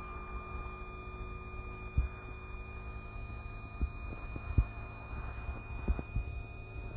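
Hydraulic power unit of a HY-RYDER BA-12 trailer-mounted boom lift running with a steady hum while the boom raises the basket. Low rumble with a few dull thumps comes and goes underneath.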